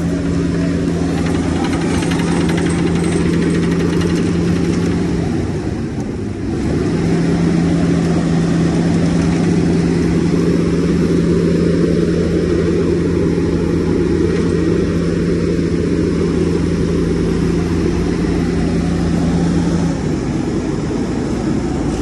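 Vögele Super 1800-3 tracked asphalt paver running while laying asphalt: a steady diesel engine drone with a humming tone that breaks off briefly about six seconds in.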